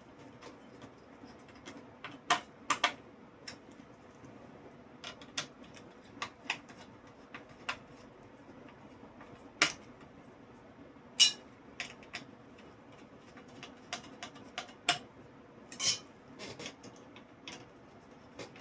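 Irregular light clicks and metallic clinks as a CPU cooler is fitted onto a motherboard, its hardware knocking and tapping together. The taps are single or in quick pairs, a few seconds apart, with the sharpest about ten and eleven seconds in.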